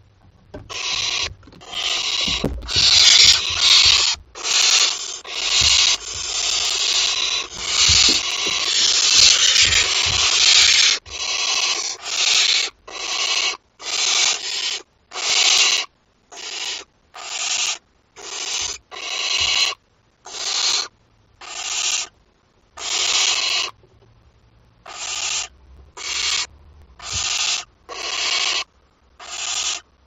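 Barn owl chicks giving their hissing begging calls. In the first ten seconds several chicks overlap into an almost continuous hiss, then the calls come as separate hisses about once a second.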